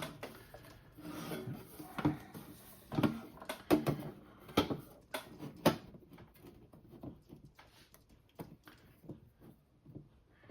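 Handling noise of the watt meter's case being fitted back onto its chassis: a run of sharp clicks and knocks in the first six seconds or so, then lighter rubbing and ticks.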